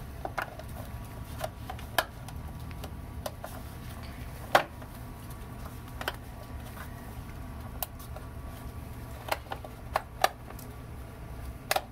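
Hard plastic cover of an RV propane regulator clicking and knocking against the regulator and its brass fittings as gloved hands work it back into place: scattered sharp, irregular clicks, the loudest about four and a half seconds in, over a low steady rumble.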